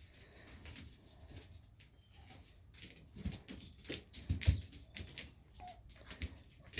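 Rhode Island Red hens giving a few soft, short calls, with several low thumps and scuffs about halfway through. The loudest thump comes at about four and a half seconds.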